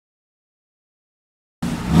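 Dead silence, then about a second and a half in an Aston Martin Vantage's engine note cuts in abruptly, running strongly.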